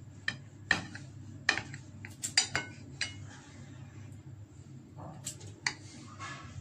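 Knife blade clinking against a glass plate as it cuts through slices of bread: about nine sharp clinks, with a pause of about two seconds in the middle, over a low steady hum.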